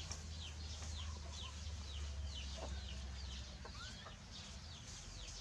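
Birds chirping: a steady stream of short, high, falling peeps, several a second, over a low steady hum.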